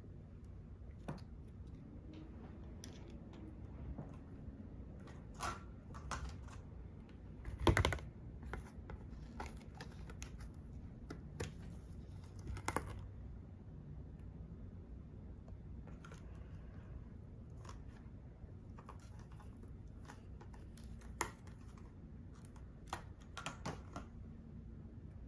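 Makeup products and tools being handled: irregular light clicks, taps and short scratchy strokes, with one louder sharp click about eight seconds in.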